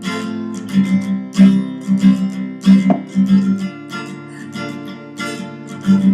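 Acoustic guitar strummed in a steady rhythm, playing the instrumental bridge between a chorus and the next verse of a folk song.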